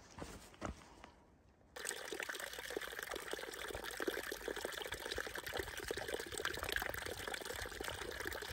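A few footsteps on a dirt trail, then, about two seconds in, a small stream of water trickling steadily between mossy rocks into a shallow pool, heard close up.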